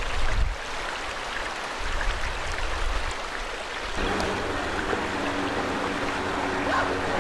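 Rushing floodwater, with gusts of wind buffeting the microphone near the start. About four seconds in the sound changes abruptly, and a steady low hum joins the water.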